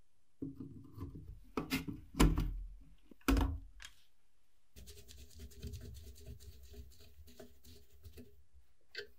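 Metal parts of an old filmstrip projector being fitted: the chrome lens barrel is pushed into the housing with several sharp metal knocks and clicks, then a small screw is turned in with a screwdriver, a steady scraping for a few seconds, ending in a light click.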